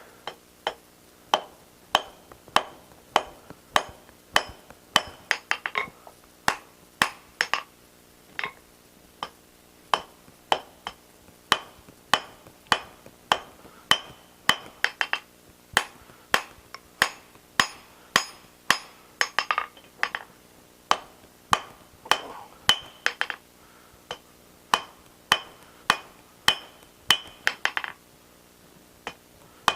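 Blacksmith's hammer striking hot steel on an anvil at about two blows a second, each blow ringing briefly, with a few short pauses: drawing out a forged steel handle.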